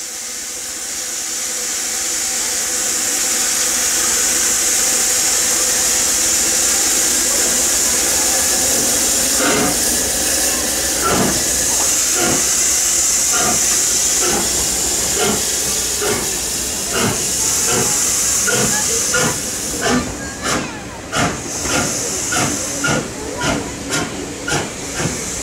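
Steam locomotive pulling away: a loud steady hiss of steam from the open cylinder drain cocks, with exhaust beats starting about ten seconds in and quickening to about two a second near the end.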